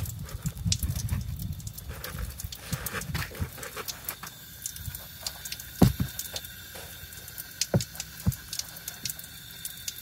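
Scattered taps, drips and knocks around a car's front end while it is hosed down in a water-leak test, with one sharp knock about six seconds in. A faint steady high tone comes in about four seconds in.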